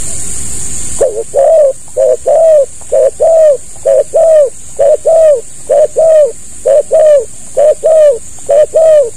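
Spotted dove cooing: about nine quick pairs of short, loud coos, starting about a second in.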